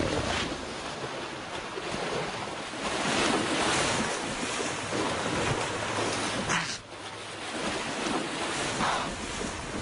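Rushing, scuffling noise of lionesses struggling with a horned antelope in the dust, surging and easing unevenly, with a brief lull about seven seconds in.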